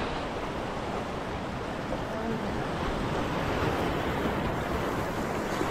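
Small waves washing and splashing against a rock ledge at the water's edge, a steady noise with wind rumbling on the microphone.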